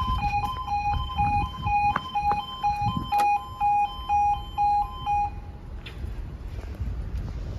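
Level crossing warning alarm sounding a two-tone yelp that alternates between two pitches about twice a second while the barriers move, then stopping about five seconds in. A low rumble runs underneath.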